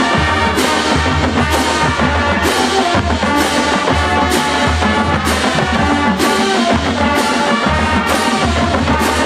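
High school marching band playing: the horns hold full chords over the drumline, with a strong hit on the beat a little under once a second.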